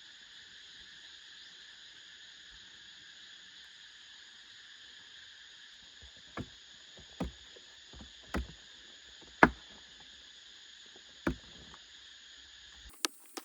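Steady chorus of forest insects, with five separate sharp knocks in the second half, the fourth the loudest. Just before the end the sound changes abruptly and a quicker run of strikes begins.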